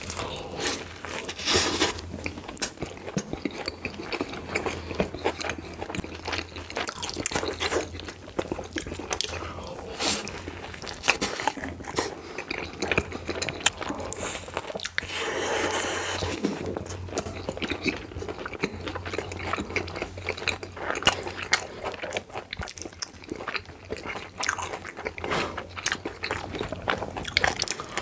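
Close-miked crunching bites into fried burgers, with wet chewing in between, many short crackly crunches throughout and a longer crunchy stretch about halfway through.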